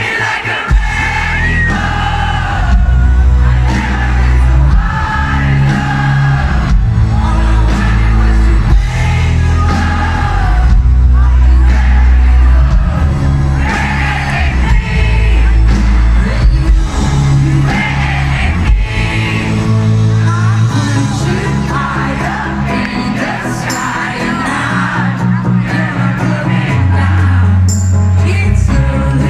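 Live concert performance of a pop power ballad: a woman's lead vocal over a loud amplified band with a heavy, pulsing bass.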